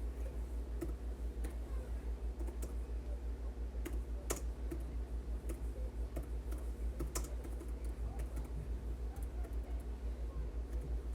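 Scattered computer keyboard and mouse clicks over a steady low hum, with two sharper clicks about four and seven seconds in.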